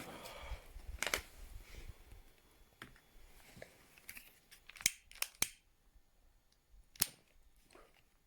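A parcel being handled and opened: scattered sharp clicks and short rustles of packaging, the loudest a few quick snaps about five seconds in and one near seven seconds.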